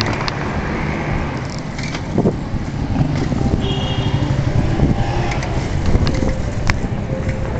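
Wind buffeting the microphone of a camera carried along a street at riding speed: a steady, rough low rumble with a hiss of road and air noise and a few faint clicks.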